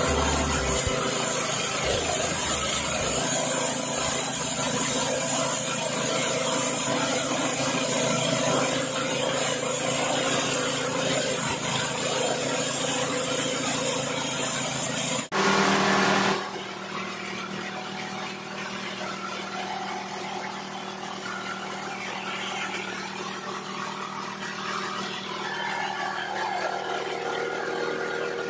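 Small 6.5 hp engine of a rice thresher running steadily. About halfway through there is a brief break, and after it the machine runs on more quietly.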